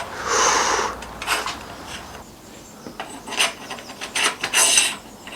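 Shimano XTR brake levers being handled and fitted onto a handlebar: a rubbing scrape near the start, then a string of short scrapes and light clicks.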